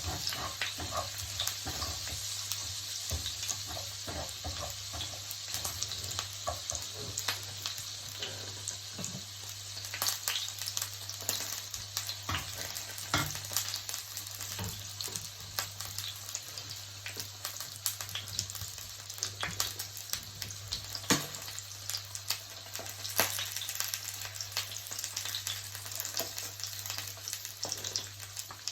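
Salmon frying in a pan with its lemon-sharpened sauce: a steady sizzle with frequent crackles and pops, over a low steady hum.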